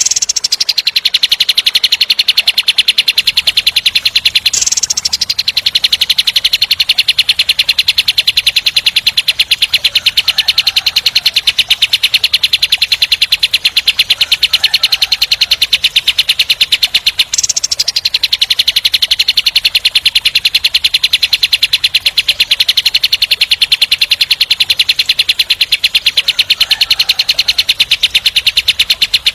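A kapas tembak singing a long, fast, tight rattling trill of rapid repeated notes. The trill runs on almost without pause, breaking off briefly about four and a half seconds in and again at about seventeen seconds.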